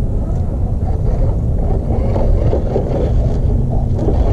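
Wind rumbling on the action camera's microphone, with a faint wavering whine from the RC crawler's electric motor and gears as it climbs rock.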